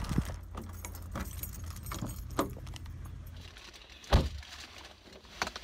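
Keys jangling with a few light clicks as a Toyota pickup truck's door is opened, then the door shut with one loud thump about four seconds in.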